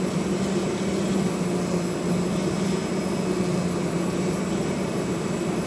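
Vibrating knife cutting machine running while it cuts shapes out of a printed sheet: a steady, unchanging low mechanical drone.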